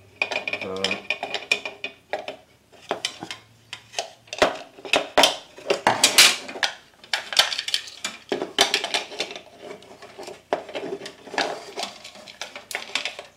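Irregular metallic clinks, taps and scrapes of a wrench working a brass compression fitting on an aluminum pressure cooker lid. The fitting is being snugged up only lightly. One clink rings briefly near the start.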